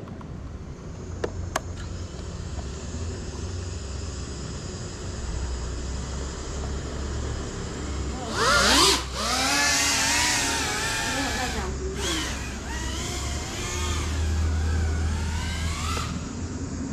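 GEPRC Cinelog35 cinewhoop quadcopter's motors and ducted props spinning up with a sudden rising whine about eight seconds in, the pitch swinging up and down with the throttle as it flies, dropping out briefly about four seconds later. Before that, only a low steady hum and a couple of sharp clicks.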